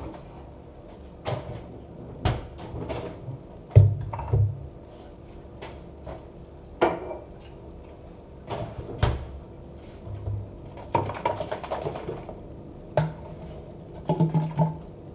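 A string of separate knocks, clicks and clatters as things are taken out of a refrigerator and a plastic bottle and a drinking glass are handled and set down on a counter; the loudest is a thump about four seconds in, with short bursts of rattling near the end.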